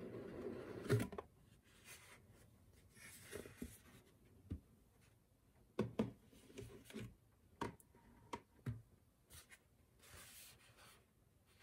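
A rigid cardboard box being opened by hand: the lid rubs as it slides up off the base and comes free with a sharp knock about a second in. Scattered soft taps and brief scuffs follow as cardboard and plastic-wrapped contents are set down and lifted.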